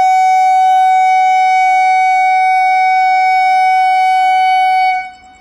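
Indian Railways electric locomotive's air horn sounding one long, loud blast on a single steady note rich in overtones. It starts abruptly and cuts off about five seconds in, leaving a short echo.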